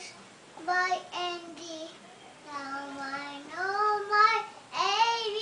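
A two-year-old child singing in a high voice, with no clear words: a few short phrases, a long held lower note about halfway through, then rising into higher notes near the end.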